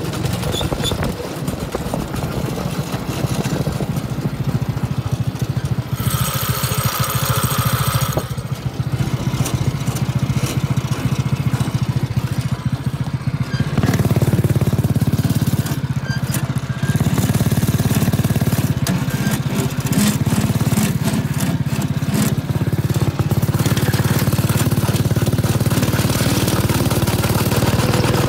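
A go-kart's small engine running as the kart is driven, getting louder about fourteen seconds in and holding there. A hiss of about two seconds starts about six seconds in.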